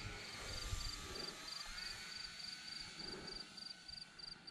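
Insects chirping in an even pulsed rhythm, about three high chirps a second, over a faint outdoor hiss.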